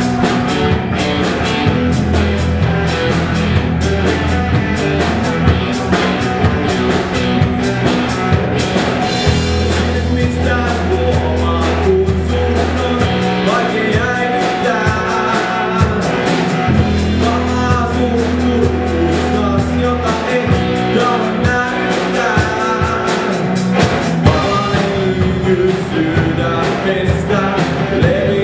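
Live rock band playing loud: fast drum-kit beats, electric guitar, held low bass notes and a singer's voice.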